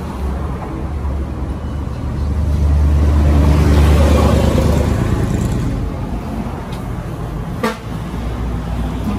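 A motor vehicle engine running close by, a low steady sound that swells over the first few seconds and then eases off. A single sharp click comes about three-quarters of the way through.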